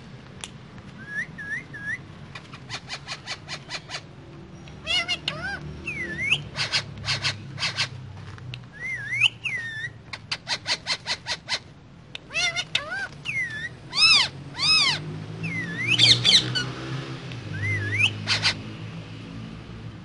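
Pet parakeets, an Indian ring-necked and an Alexandrine, calling in repeated bouts: fast trains of short chirps, rising-and-falling whistles and a few loud harsh calls, the loudest in the second half.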